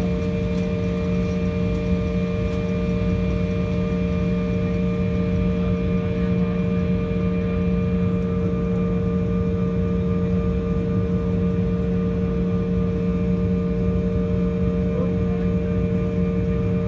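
Steady drone inside an airliner's cabin on the ground: a low rumble with a few constant humming tones over it.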